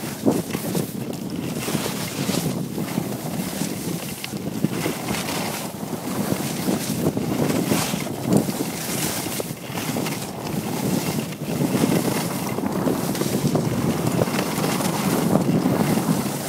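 Skis scraping and hissing over packed snow on a downhill run, with wind buffeting the microphone; the noise rises and falls unevenly.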